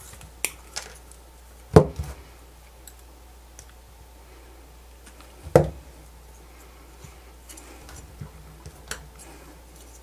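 Side cutters snipping thin copper wire at a plastic battery adapter, then handling of the tool and the part: a few light clicks and two louder knocks, the first about two seconds in and the second about five and a half seconds in.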